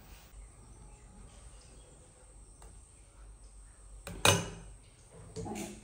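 Faint room tone, then about four seconds in a single sharp metal clank with a brief ring as a metal idli plate is lifted against the steamer pot, and a lighter knock near the end.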